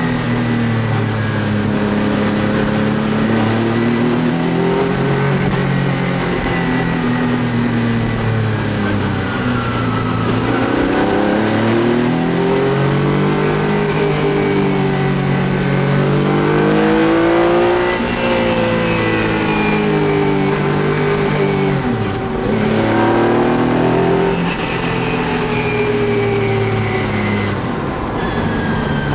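Metro 6R4 Clubman rally car's 3-litre V6 engine heard from inside the cabin, pulling hard and revving up and down through the gears, its pitch rising and falling again and again. About three-quarters of the way through the revs drop suddenly, then climb again.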